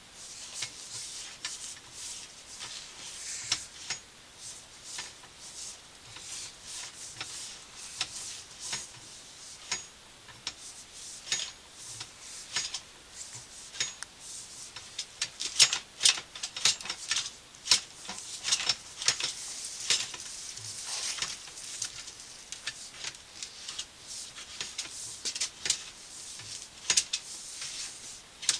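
Irregular clicking, ticking and light scraping as a sewer inspection camera's head and push cable are fed along ABS drain pipe, the clicks coming thicker and louder about halfway through.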